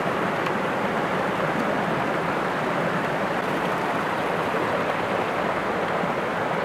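Steady rush of a small waterfall cascading over rocks in a stream.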